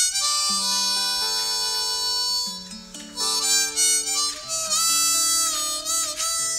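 Music: a harmonica playing held chords and a slow melody, notes changing about every second.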